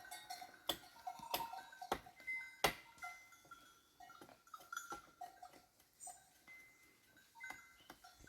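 A flock of sheep moving about, with scattered sharp clicks and knocks and short, faint high tones.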